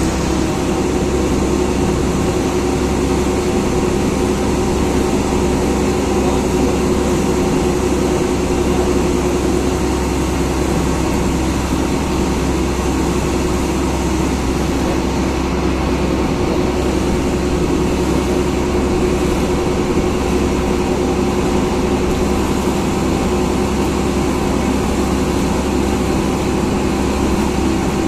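Passenger engine boat's motor running at a steady drone, with water rushing and splashing along the hull as the boat moves.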